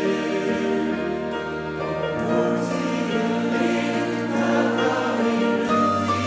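Large mixed choir singing held chords in harmony. The chord changes about two seconds in and again near the end.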